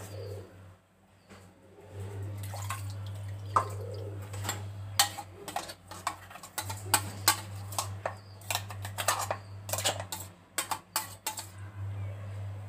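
Stainless steel kitchenware clinking and knocking in quick irregular strikes, with some water sounds, as the steel mixer jar and utensils are handled. A steady low hum runs underneath.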